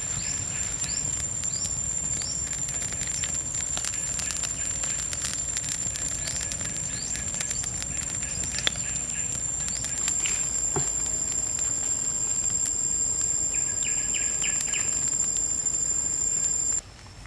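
Forest insect chorus: a steady high-pitched drone, with repeated short chirps and scattered clicks over it. The drone stops abruptly near the end.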